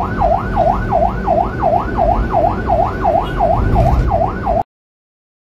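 An emergency siren in a fast up-and-down yelp, about three sweeps a second. It cuts off suddenly near the end.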